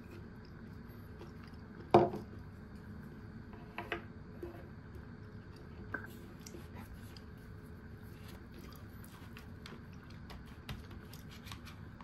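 A soup bowl set down on a wooden table with one sharp knock about two seconds in, followed by a couple of softer knocks and scattered light clicks of tableware.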